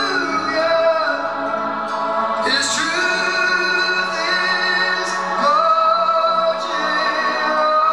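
Recorded vocal music played through a tube amplifier and loudspeakers: several voices singing long held notes that slide to new pitches every few seconds.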